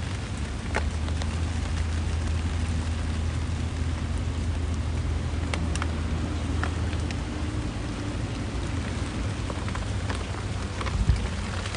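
Heavy rain falling steadily, with scattered drops ticking close by over a steady low rumble. There is a low thump near the end.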